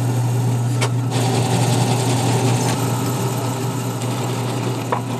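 Drill press motor running steadily with a constant low hum while the bit bores a magnet hole into plywood, with a brief click about a second in.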